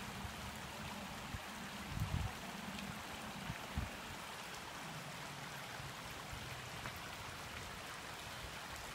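Steady rush of a creek running over rocks, with a couple of low thumps from the phone being handled about two and four seconds in.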